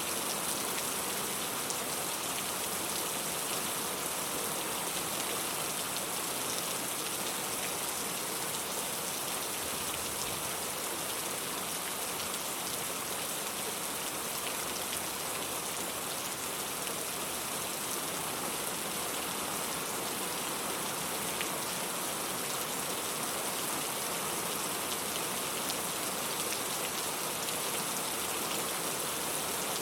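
Steady rain falling: a dense, even hiss with faint scattered ticks of drops.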